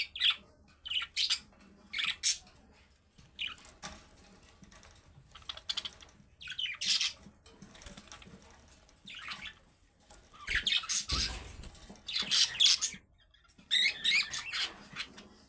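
Budgerigars chirping and chattering in short, irregular bursts mixed with quick clicking sounds, growing busier and louder in the second half.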